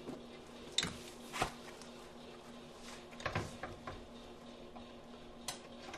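Light, scattered knocks and clunks, about five, as a front strut and coil-spring assembly is handled and pushed up into the wheel well against the strut tower, over a faint steady hum.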